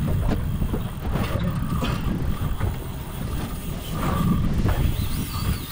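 Wind rumbling on the microphone aboard a small fishing boat at sea, with the boat's motor running underneath.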